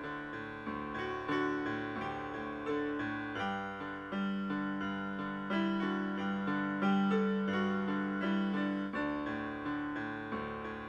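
Solo piano music: notes struck at a steady, unhurried pace over held lower notes.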